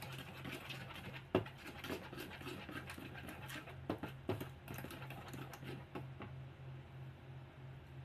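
Spatula stirring and scraping cake batter around a bowl as flour is mixed in, with a few sharper knocks against the bowl about a second and a half in and twice around four seconds in. A low, evenly pulsing hum runs underneath.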